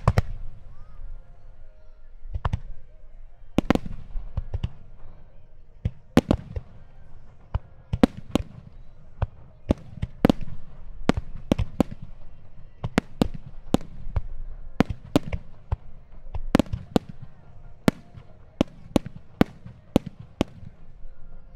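Aerial firework shells bursting in a fireworks display: a string of sharp bangs at uneven spacing, sparse at first and coming faster, up to about two a second, over the second half, with a low rumble between them.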